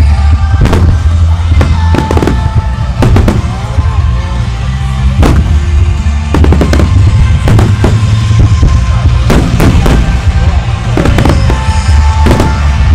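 Aerial firework shells bursting in a display, with a dozen or more sharp bangs spread through at uneven intervals, over music with a heavy bass line.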